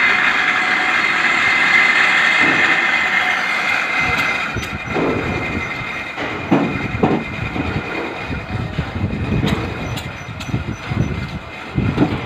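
Tractor engine driving a cable winch that hauls a digging bucket up a well shaft. A steady high whine for the first four seconds gives way to irregular knocking and rattling.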